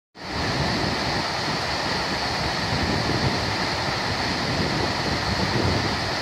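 River water tumbling over a weir: a steady, loud rush of white water.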